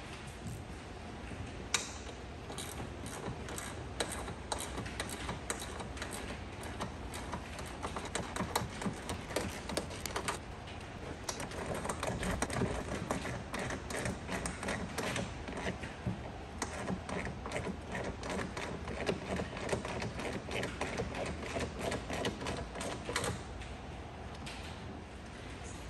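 Quick, irregular clicking and clattering of hand tools and parts being worked on the truck's engine. It is busiest in the middle and thins out near the end.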